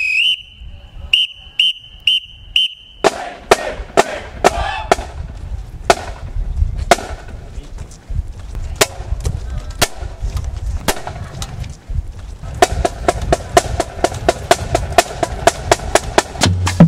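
Marching band drumline with snare drums and bass drums. A loud whistle holds a note, then gives several short blasts. Sharp stick clicks then keep time about once a second, and about twelve seconds in the snares break into a fast cadence, with bass drums joining near the end.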